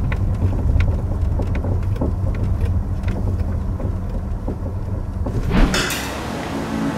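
Road rumble inside the cabin of a 2009 Hyundai Avante HD driving on asphalt, with faint irregular clicks of a fine underbody rattle over small road vibrations, the suspension-area noise being diagnosed. A whoosh comes in near the end, then music.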